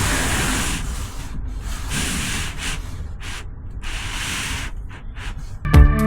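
Repeated rough rubbing or scraping strokes. Music with a beat comes in near the end.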